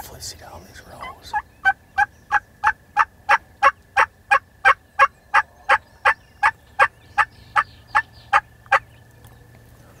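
Wild turkey yelping: a long, evenly spaced run of about twenty loud yelps, about three a second, that starts just over a second in and stops near the end.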